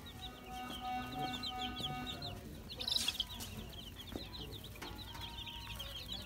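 A brood of baby chicks peeping: many short, high cheeps overlapping, a little louder about three seconds in.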